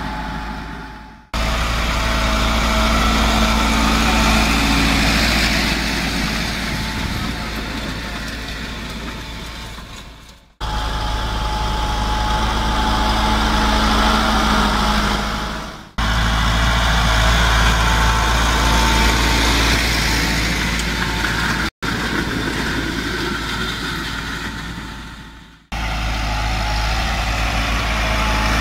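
Massey Ferguson 375 tractor's diesel engine running steadily while pulling a disc harrow through the field. The sound comes in several stretches that each fade down and then restart abruptly.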